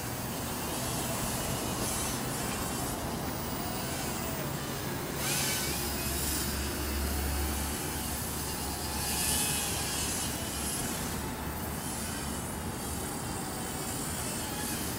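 Steady wind noise over the microphone, with the faint whine of a small toy quadcopter's motors and propellers rising and falling in pitch as it manoeuvres. A low rumble swells in the middle and fades again.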